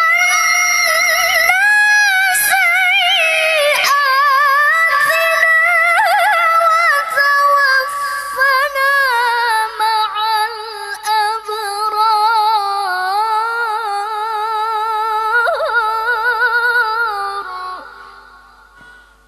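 A female qari'ah reciting the Qur'an in melodic tilawah style into a microphone: long held notes with fast wavering ornaments, the melody slowly sinking lower through the phrase until it fades out near the end.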